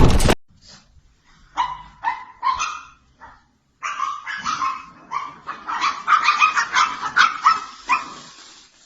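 A dog barking and yapping, first a few separate barks, then a quick, dense run of barks. A loud blast cuts off just as it begins.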